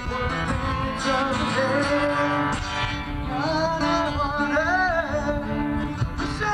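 Live band playing: acoustic guitars over a drum kit, with a harmonica playing a wavering, bending lead line that is strongest midway through.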